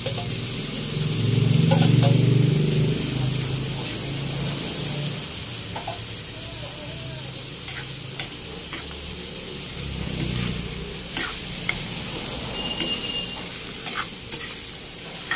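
Pork belly and innards frying in a wok, with a steady sizzle. About one to three seconds in there is a louder swell as the boiled pork belly and its broth are tipped in from a pot. After that a spatula stirs the mix, with scattered scraping clicks against the wok.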